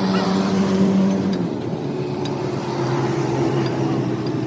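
A motor running steadily, its pitch dropping a little about one and a half seconds in, with a few light clicks.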